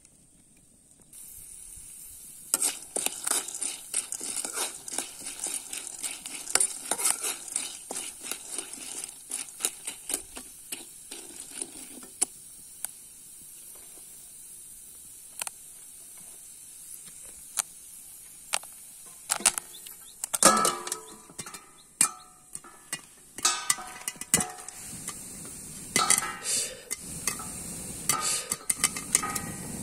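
Corn kernels sizzling and crackling in a hot black iron wok as they are stirred, with a steady high hiss. In the second half, loud metallic clanks ring out as a stainless steel plate is handled and set on the wok as a lid.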